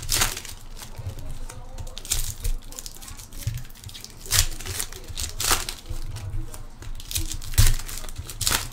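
Foil wrappers of Panini Prizm football card packs being torn open and crinkled by hand, in irregular bursts of rustling with a few louder rips.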